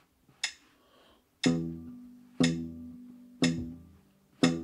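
A metronome click, then four thumb-plucked notes on the open low E string of a parlor-size acoustic guitar, one a second in time with the metronome's clicks at 60 BPM. Each note rings and fades before the next.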